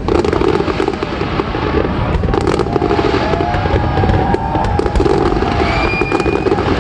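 Fireworks display going off continuously: dense crackling and rapid popping bursts, with a few whistling tones sliding in pitch in the second half.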